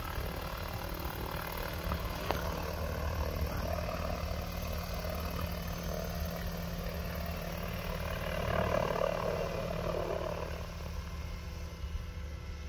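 Engine and rotor of a small open-frame ultralight rotorcraft in forward flight: a steady drone that grows louder through the middle, loudest about nine seconds in, then fades.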